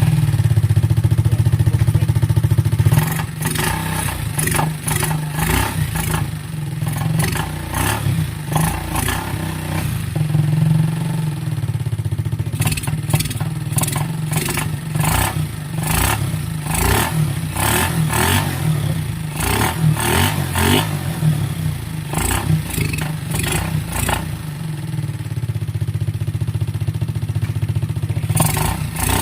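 Rusi Rapid scooter engine running after a carburettor cleaning and tune-up, a little higher for the first three seconds and then settling to a steady idle. Irregular sharp clicks and clatter sound over it throughout.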